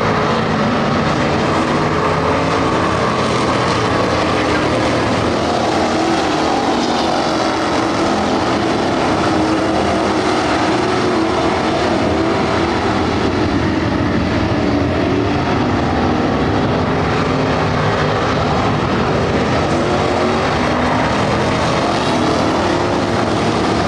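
A pack of dirt-track race cars running at speed around the oval, many engines overlapping in a steady, loud drone whose pitch rises and falls as cars go through the turns and down the straights.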